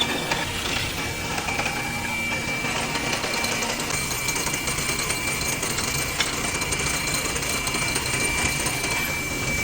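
Power drill running a square-hole drill bit into wood, a steady, fast mechanical rattle with a thin high whine.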